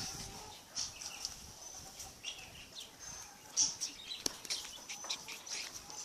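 Birds chirping: scattered short, high chirps with a few sharp clicks, fairly faint.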